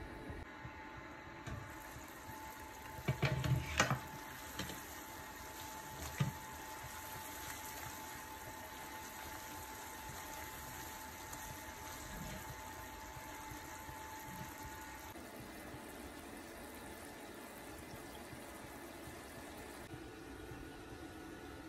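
Keema and karela simmering in a wok: a steady bubbling hiss, with a few knocks of the glass lid and spatula against the pan about three to four seconds in.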